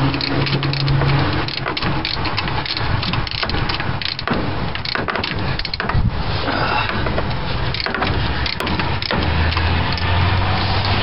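Hand ratchet wrench with an extension clicking in quick runs of short clicks as it is worked back and forth to remove the fuel pump's mounting bolts.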